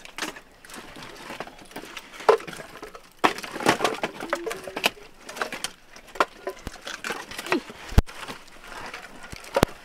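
Split firewood pieces knocking and clattering against each other as they are picked up off a pile and gathered in the arms: irregular wooden knocks, with two sharper knocks near the end.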